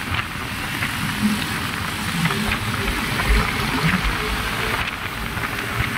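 Wind rushing over the microphone on top of a steady rush of road and engine noise from a Yamaha motorcycle ridden at about 55–60 km/h.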